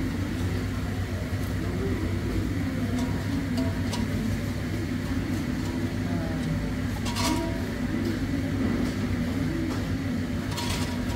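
Jalebis frying in hot oil in an iron kadai over a gas burner: a steady low rumble with a hiss of sizzling oil, and metal tongs clicking against the pan about seven seconds in and a few times near the end.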